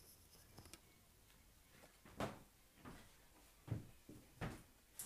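Near silence in a small room, broken by about four faint knocks, spaced roughly three-quarters of a second apart.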